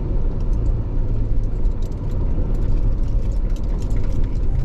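Car driving along: steady low rumble of engine and tyres on the road, heard from inside the car, with faint scattered ticks.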